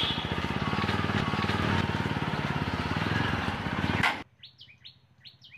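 Motorcycle engine running steadily at low speed, cutting off suddenly about four seconds in. A small bird then chirps repeatedly in short, falling notes.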